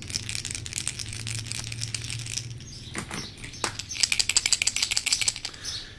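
Hard plastic Jumping Minnow T20 stickbait lures shaken by hand, the rattle balls inside clicking rapidly. The clatter grows louder and denser about four seconds in. The rattle balls have been set loose to give the lure a much noisier rattle, meant to draw peacock bass.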